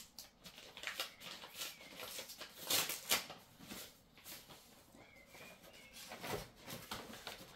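Paper rustling and crackling in irregular bursts as a greeting card is handled and opened, loudest about three seconds in.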